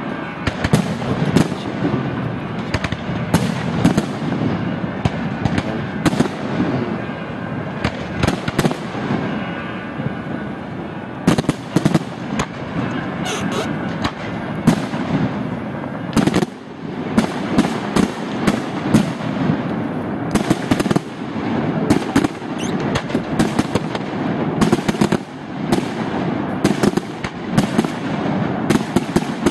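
Aerial fireworks display: shells bursting in a continuous stream of sharp bangs, some coming in rapid strings, over a constant din of overlapping blasts.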